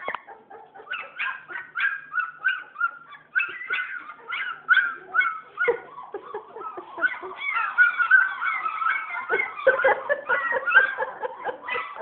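Two-week-old German Shepherd puppies squealing and whining in short, high-pitched cries, several at once, growing busier in the second half.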